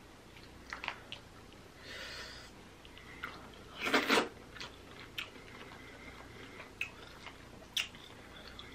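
Close-miked eating of king crab legs: sharp clicks and snaps of shell as the meat is pulled out, and a louder wet bite about four seconds in as the meat goes into the mouth, followed by chewing.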